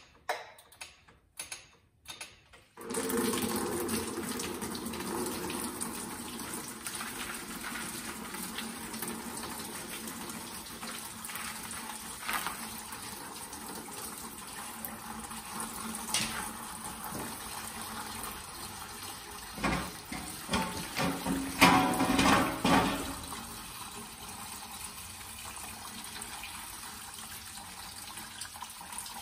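A few sharp clicks as the stubborn coolant drain plug is worked loose. Then, about three seconds in, engine coolant starts gushing out and pours steadily into the drain funnel below, with louder splashes around the middle.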